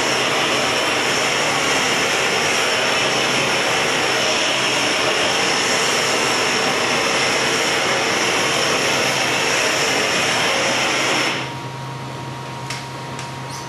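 Steady roar of handheld gas torches heating a large glass vase on a blowpipe. About eleven seconds in the roar cuts out suddenly as the torches are taken off the piece, leaving a quieter steady hum with a few light clicks.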